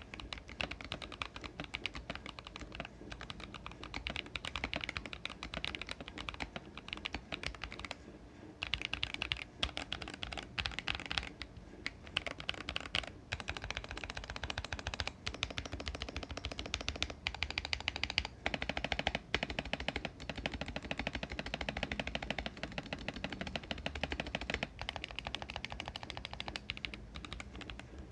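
Fast continuous typing on a stock Akko ACR67 mechanical keyboard: a dense run of keystroke clacks, broken by a few brief pauses.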